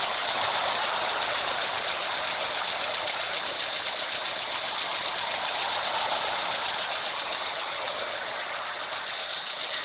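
Renault Clio engine idling steadily with a fast, even ticking, which the owner puts down to the valves and tappets.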